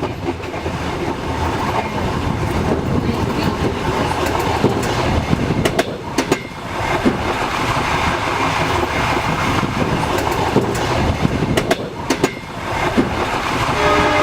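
Passenger train running along the track: a steady rumble of wheels and carriage with the clickety-clack of wheels crossing rail joints, heard as sharp double knocks twice.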